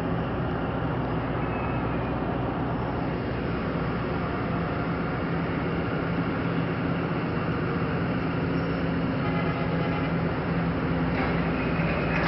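Pakistan Railways diesel-electric locomotive pulling away slowly with its train, its engine running with a steady low drone that grows gradually louder as it nears. Wheel clatter on the rails starts near the end.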